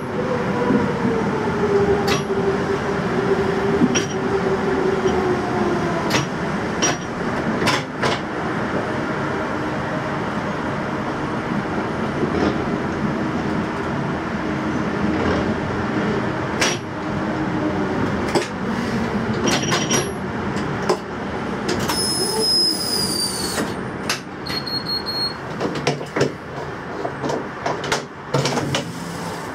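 Berlin U-Bahn GI/1E train running slowly into a platform and braking. A motor whine falls in pitch as it slows, and sharp clicks come from the wheels over rail joints throughout. A short high squeal sounds about three-quarters of the way through, followed by a brief high beep.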